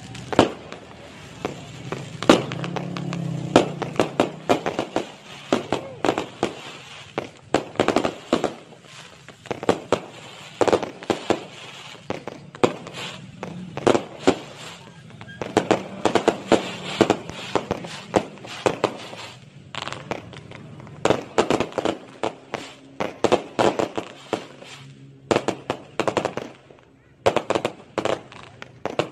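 Aerial fireworks bursting overhead in rapid, irregular bangs and crackles, several a second at their densest, with a short lull near the end.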